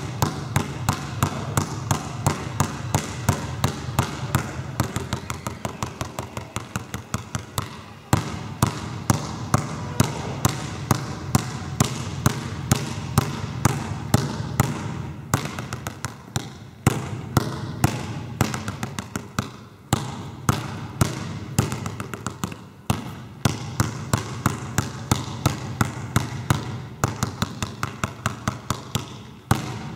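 A basketball being dribbled hard on a sports hall's wooden floor in quick, rhythmic bounces, at times several a second, broken by short pauses between drills.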